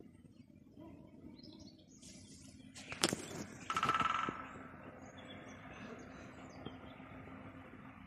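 A sharp click about three seconds in, then a short, very rapid rattle lasting about half a second with a ringing tone in it: the unexplained noise that seems to come from the trees. A low steady hum runs underneath.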